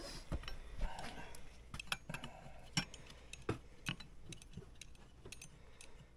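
Irregular light metallic clicks and clinks of a wrench working against small brake parts, as a hydraulic brake-light pressure switch is being unscrewed.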